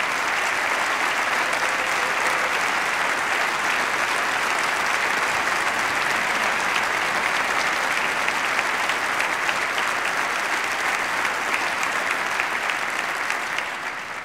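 A large audience applauding steadily, a dense mass of clapping that dies away quickly at the end.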